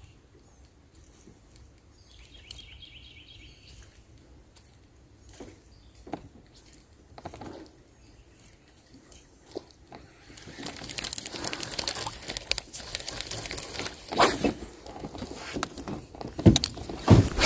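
Quiet surroundings with a short trilled bird call a couple of seconds in. From about ten seconds in there is loud crackling and rustling with sharp clicks: handling noise from a fishing rod and spinning reel.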